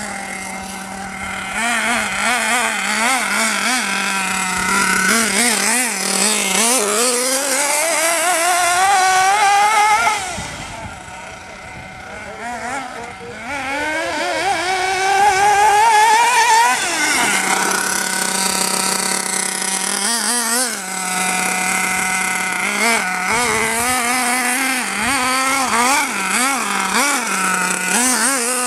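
Hobao Hyper 8.5 nitro RC buggy's small glow engine repeatedly revving up in long rising whines as it accelerates, then dropping back to a steady buzzing idle. It is quieter for a couple of seconds around the middle.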